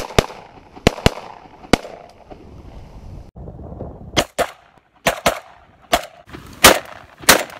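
Saiga 12 semi-automatic 12-gauge shotgun firing a string of about a dozen shots at a quick, uneven pace, each a sharp loud crack with a short echo, in two runs split by a brief pause. The action cycles and ejects a shell after each shot.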